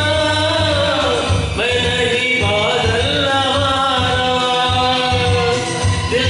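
A man singing a song into a microphone over a recorded backing track with a steady beat, holding long notes that slide in pitch.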